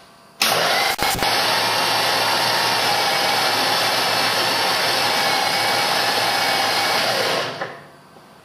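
Rolls-Royce Merlin V12 aero engine being turned over on its electric starter without firing, a steady whir of starter, gears and valve train. The engine is only being cranked to circulate its priming oil, since the ignition is not yet fitted. It starts about half a second in, holds steady and winds down near the end.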